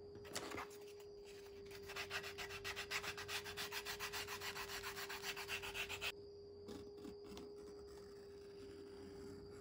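Edge of a leather knife sheath being sanded with a hand-held abrasive strip: quick back-and-forth scraping strokes, several a second, starting about two seconds in and stopping about six seconds in. A faint steady hum runs underneath.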